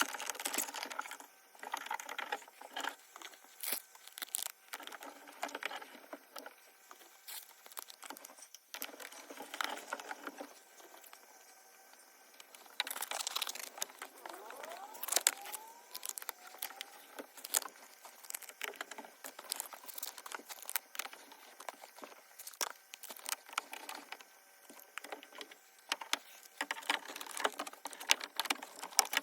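Irregular clicks, sharp taps and rustling of hands handling parts and tools, with a brief squeak about halfway through.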